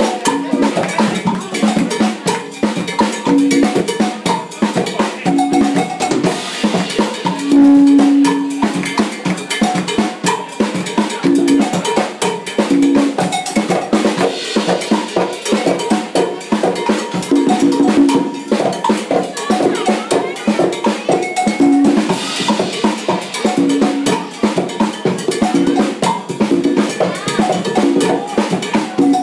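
Live band music driven by drum kit and conga drums playing a fast, busy Arabic-style rhythm, with a short low note figure recurring over it.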